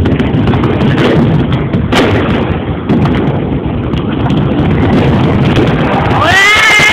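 Firecrackers and bangers cracking repeatedly over the loud, dense rumble of a stadium crowd. About six seconds in, a pitched sound rises and then holds.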